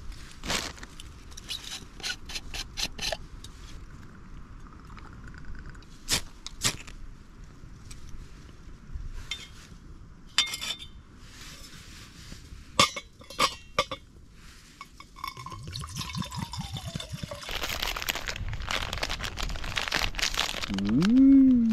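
Metal clinks and taps as a brass spirit burner, a metal stove stand and a pot are handled and fitted together. Near the end comes a denser crinkling as a packet is torn open, then a short rising-and-falling vocal sound.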